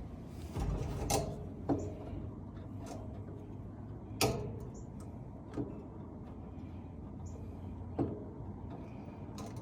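About six separate small clicks and taps, spread irregularly, from handling small metal parts while trying to thread a nut onto a wiring terminal, over a steady low hum.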